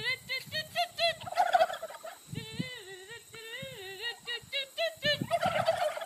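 A flock of white domestic turkey toms gobbling, bout after bout, with several birds calling over each other.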